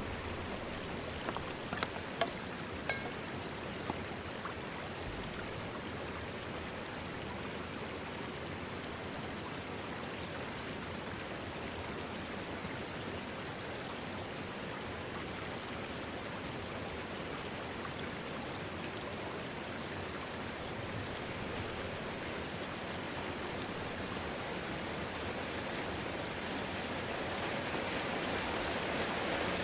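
Steady rush of flowing river water, growing louder over the last few seconds. A few faint clicks come in the first few seconds.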